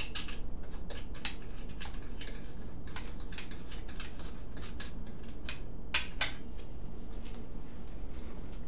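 A spoon stirring dry spice rub in a small glass bowl: irregular light clinks and scrapes, with a couple of sharper clicks about six seconds in.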